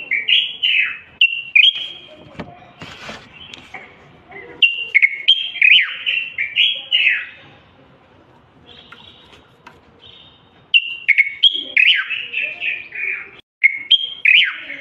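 Common bulbul singing: bursts of loud, quick whistled phrases of falling and rising notes, with short pauses between the bursts.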